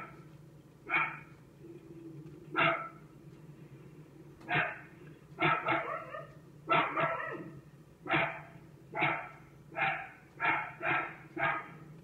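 A dog barking repeatedly: about a dozen sharp barks, a second or so apart at first and coming faster in the second half.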